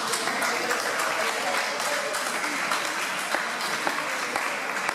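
Small crowd clapping and applauding, with voices mixed in.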